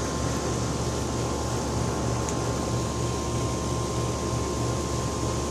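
Steady mechanical hum: a low drone pulsing about twice a second, under a thin steady whine and a faint hiss.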